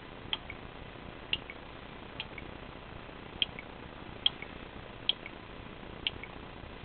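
Relays on an Arduino-driven relay board clicking as devices are switched one by one from a phone over Bluetooth. There are about seven clicks, roughly one a second, each sharp click followed by a fainter one a fraction of a second later.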